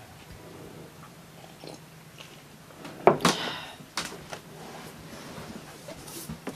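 A ceramic mug set down on a wooden table with a sharp knock about three seconds in, followed by a few lighter clicks and taps as hands move over a paper chart, over a quiet room hiss.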